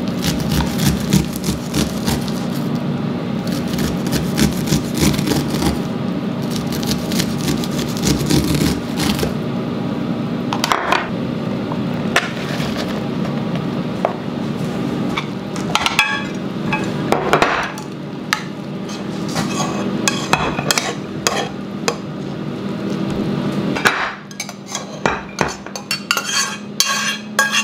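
A kitchen knife cuts kernels off an ear of cooked corn on a plastic cutting board in quick repeated scraping strokes. Then the kernels are scraped off the board into a glass dish, and near the end dishes and a pan clink sharply as they are handled.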